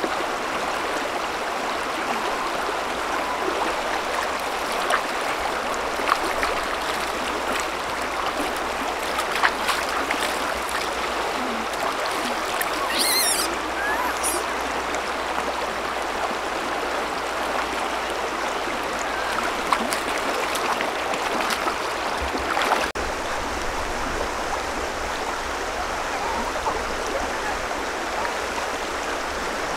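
Steady rush of a shallow river flowing over stones, with a few short high-pitched chirps about thirteen seconds in.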